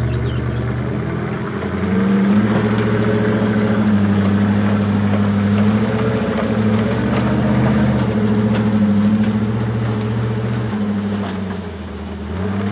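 Heavy truck engine running under load, its pitch holding steady and then shifting up or down in steps several times as the revs change.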